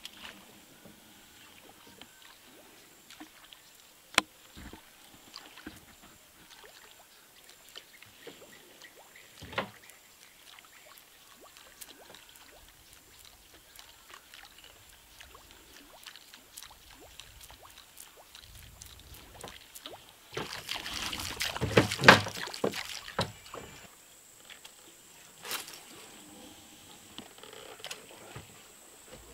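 Lake water sloshing and splashing around a small boat, with scattered light clicks and small splashes. About two-thirds of the way in comes a louder rush of splashing that lasts a few seconds.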